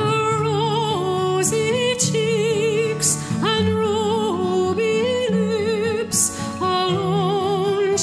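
Background music: a slow ballad sung by a solo voice with strong vibrato, holding long notes over a low, steady accompaniment.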